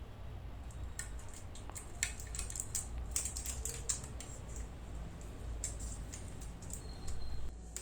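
A wallpaper roll in its plastic wrapping being handled, giving irregular crinkling clicks and crackles, over a faint steady low hum.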